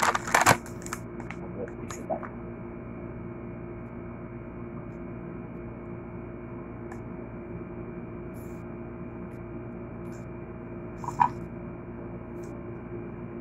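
Steady electrical hum of several fixed tones, with a few sharp clicks in the first second and faint scattered ticks and smacks of someone eating by hand; one short louder sound about eleven seconds in.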